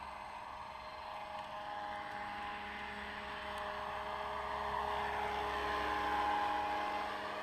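Scale AS350 RC helicopter, 700 size, in flight: a steady whine from its motor and spinning rotors. It grows louder as it flies close, loudest about six seconds in, then eases off.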